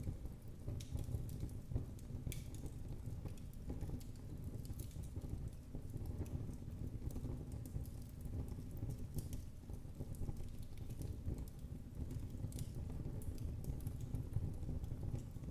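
Wood fire burning in a fireplace: a steady low rumble of the flames with frequent small crackles and pops.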